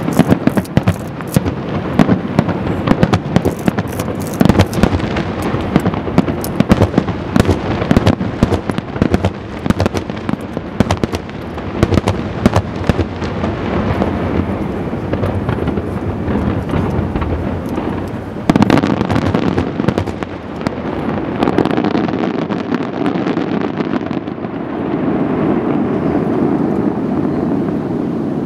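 Fireworks finale: a rapid barrage of aerial shell bursts banging and crackling, thinning out after about halfway with one last loud bang about two-thirds through. A steady rushing noise is left near the end as the bursts stop.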